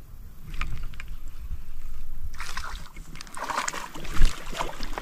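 Water splashing and sloshing over a steady low rumble, growing much louder about two and a half seconds in with a run of sharp splashes.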